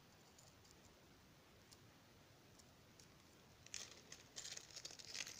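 Near silence for the first few seconds, then a quick flurry of light clicks and rattles: small metal test-lead accessory tips for a multimeter clinking together as they are handled.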